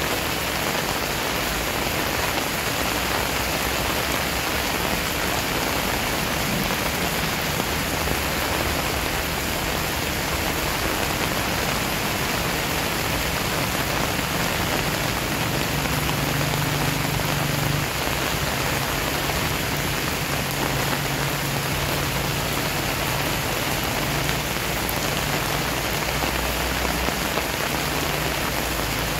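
Steady rain falling on a wet paved yard and on plant leaves: an even, unbroken hiss of splashing drops.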